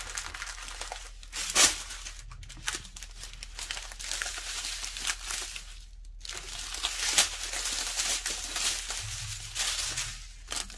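Small plastic zip bags of diamond painting drills crinkling as they are handled and laid down on a sheet of paper, with a couple of sharper, louder crackles about one and a half seconds in and again past seven seconds.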